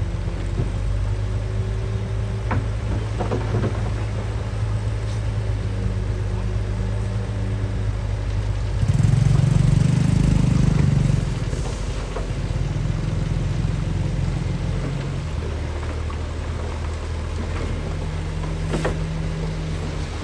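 Heavy construction machinery's diesel engine running steadily. It labours louder for about two seconds near the middle, and a few sharp knocks come through.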